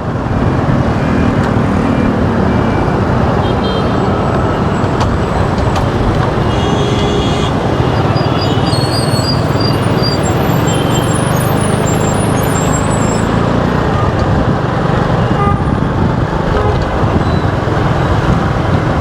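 Motorbike riding through busy city traffic, with steady engine and road noise. Short horn toots from the surrounding traffic sound repeatedly through the middle of the stretch.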